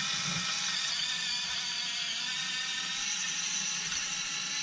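Orlandoo micro crawler's small brushed gear motor and drivetrain whirring steadily under load as the truck crawls up a steep carpeted ramp.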